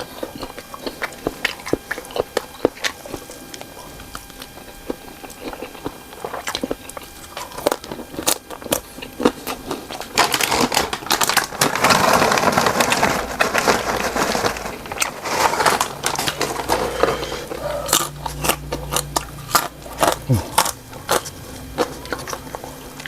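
Close-miked eating of cocktail sausages: repeated biting and wet chewing with many sharp mouth clicks, growing louder and denser around the middle.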